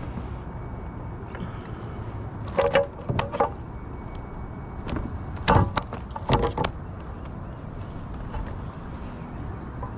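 Knocks and clatter of a caught fish and gear being handled on a kayak: two clusters of sharp knocks, one about two and a half to three and a half seconds in and another around five and a half to six and a half seconds in, over a steady low rumble.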